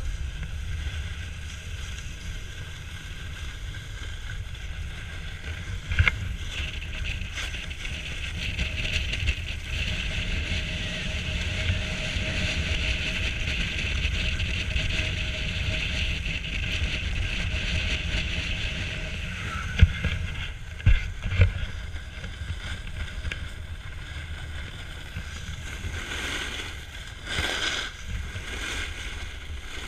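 Wind buffeting a pole-mounted action camera's microphone while snowboarding downhill, over a hiss of the board scraping across packed snow that is loudest in the middle stretch. A few sharp knocks come about six seconds in and again around twenty seconds in.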